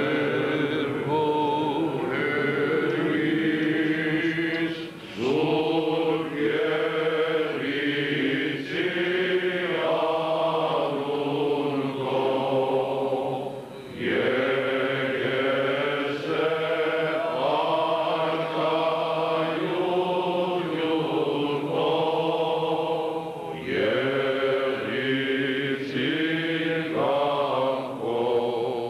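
Armenian Apostolic clergy, a group of men's voices, chanting a hymn together in long sustained phrases with short breaks between them.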